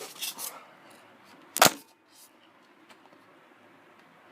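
Plastic parts of an airsoft rifle being handled, with faint rubbing and one sharp, loud clack about one and a half seconds in.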